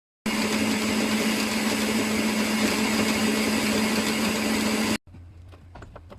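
A small motor running steadily with a strong, even hum. It starts and stops abruptly after about five seconds, and a few faint clicks follow.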